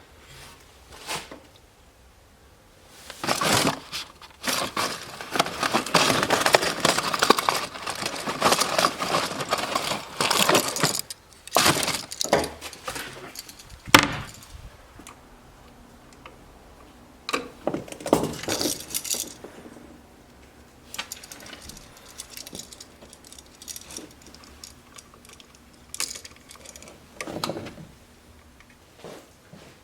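Hand-tool and small-part handling while an electrical wall switch is replaced: scraping and rattling of metal parts and wires, sharp clicks and clinks, in bursts with pauses between.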